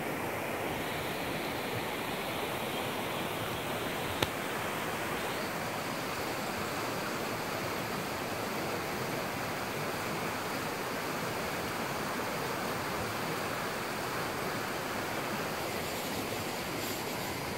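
Steady rush of a fast, swollen, muddy river running in turbulent water, with a single sharp click about four seconds in.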